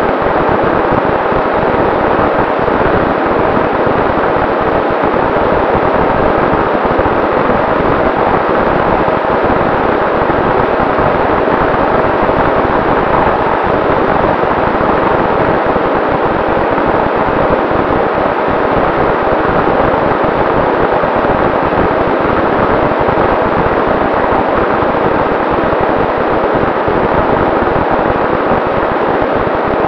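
Volantex Ranger RC plane in cruising flight, heard through its onboard camera's microphone: a loud, steady rush of airflow over the airframe with a faint, steady whine from its electric motor and propeller.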